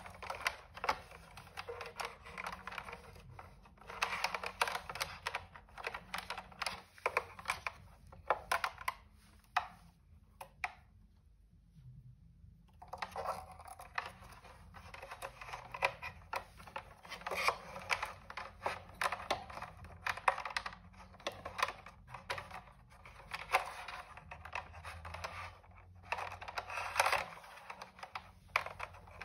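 Handling noise from wiring a Bose SoundTouch 20's plastic enclosure: many small clicks, taps and rustles as wires are pulled and pushed against the hard plastic housing. There is a short lull about ten seconds in.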